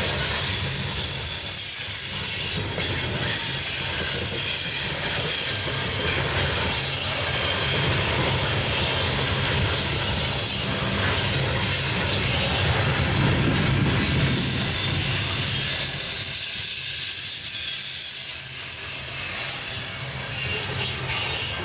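Loaded coal hopper cars of a freight train rolling past, steel wheels on the rails giving a steady high-pitched squeal and hiss over a low rumble.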